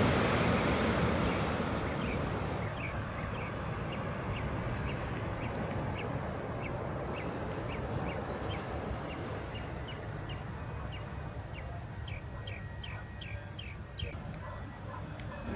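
A small bird chirping over and over, short, high, falling calls a couple of times a second that come quicker near the end. Under them is steady noise that dies down over the first few seconds.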